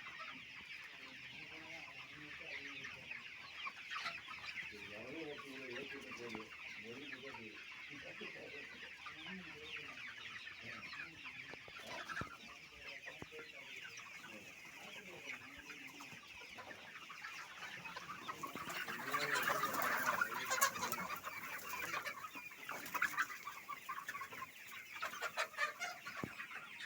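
A flock of Aseel chickens clucking and calling, over a steady chorus of high calls. It grows louder and busier about two-thirds of the way through.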